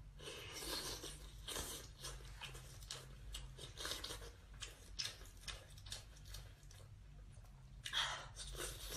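Close-up eating sounds of a person chewing sea snail meat: wet, irregular chewing and mouth noises, with a louder burst about eight seconds in.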